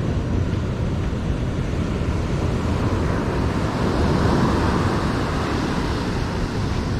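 Ocean surf breaking and washing up the beach, a steady wash that swells louder about four seconds in.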